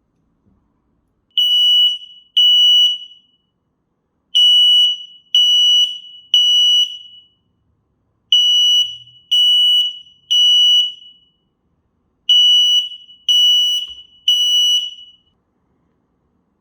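X-Sense XS01WT Wi-Fi smoke alarm sounding its test alarm: loud, high-pitched beeps in groups of three with a short pause between groups, the standard smoke-alarm evacuation pattern. The first group has only two beeps.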